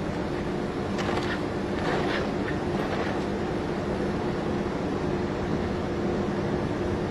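Steady industrial drone of steel mill machinery with a low, even hum, and a few short metallic clanks between about one and three seconds in.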